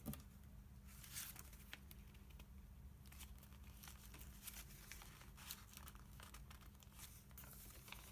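Paper pages of a handmade junk journal being turned and handled: faint, scattered rustling and crinkling with small clicks, over a steady low hum.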